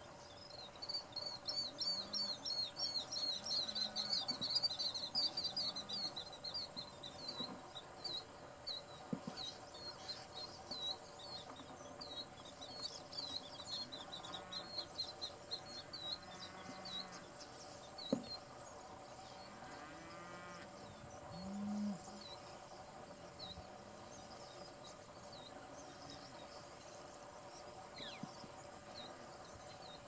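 A large mixed flock of European starlings and brown-headed cowbirds calling, a dense rapid chatter of high chirps that thins to scattered chirps after about twelve seconds. A single sharp click comes near the middle, and a low drawn-out sound rises about two-thirds of the way through.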